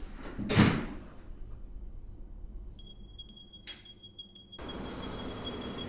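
Apartment door shutting with one loud thud. About three seconds in a high, steady ringing tone with faint regular pulses comes in, and a steady hiss joins it shortly after.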